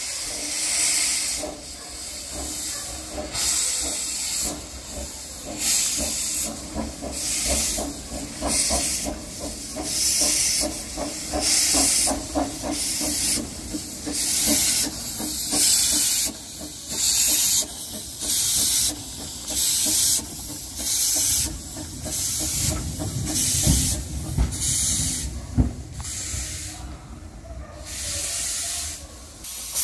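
Baldwin 2 ft gauge steam locomotive working slowly under steam: a regular series of exhaust chuffs, about one to one and a half a second, over a continuous hiss of steam from the open cylinder drain cocks. The beats quicken a little midway and spread out near the end, with a heavier low rumble about two-thirds of the way through.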